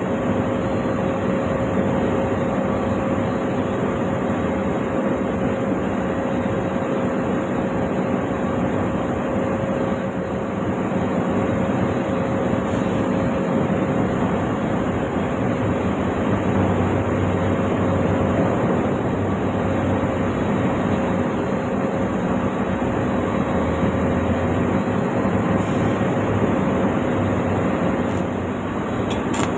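Stick (shielded metal arc) welding arc burning steadily, a continuous dense hiss with a faint steady tone underneath.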